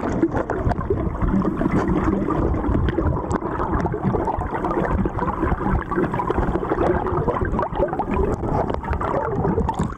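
Muffled underwater rush and rumble of moving river water with some gurgling, heard with the camera submerged so the higher sounds are dulled.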